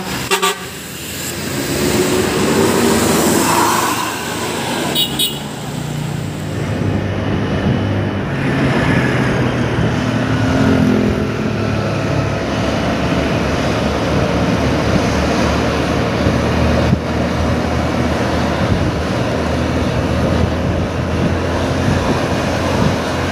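Road vehicle noise: an NPM coach bus passing close by, then a steady engine drone and road noise while driving behind the bus.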